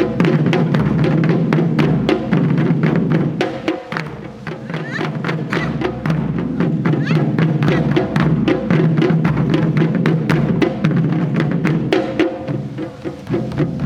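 Japanese taiko drum ensemble playing a fast, dense rhythm, many drum strikes in quick succession. The playing eases briefly about four seconds in and again near the end.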